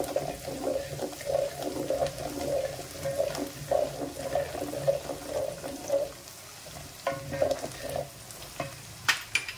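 Thick masala paste frying in oil in a pan, stirred and scraped round with repeated strokes and a light sizzle. The stirring eases off about six seconds in, with a few more strokes later and a couple of sharp clicks near the end.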